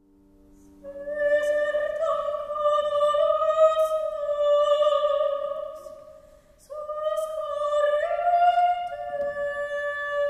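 A high soprano-range voice singing two long, sustained phrases with vibrato, the first starting about a second in and ending near six seconds, the second starting just before seven seconds. A faint low held chord sounds underneath at the start.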